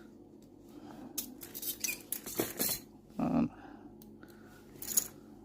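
Metal clicks, clinks and rattles from steel transport handcuffs being worked open by hand, with a sharp metallic click about five seconds in.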